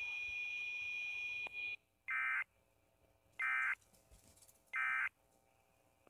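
A steady high-pitched electronic tone cuts off suddenly, then three short, identical screeching digital data bursts follow about a second and a half apart. These are the EAS end-of-message (EOM) bursts that close an Emergency Alert System test.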